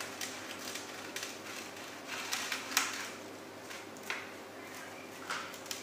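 Scattered soft crackles and rustles, about one a second, as cheese-topped beef sliders are cut and pulled apart on a parchment-lined baking tray.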